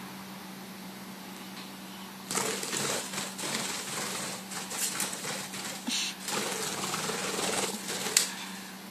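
A budgie scrambling into its wire cage: from about two seconds in, a long run of rapid clicking, rattling and rustling from claws, beak and wings on the cage, over a steady low hum.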